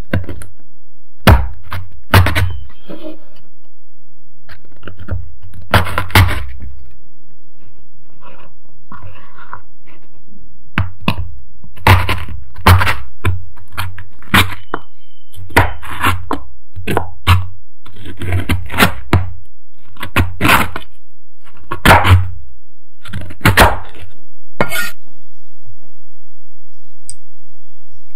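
Chef's knife chopping Oreo cookies on a wooden cutting board: irregular sharp knocks of the blade on the board as the cookies break. The strokes stop about three seconds before the end.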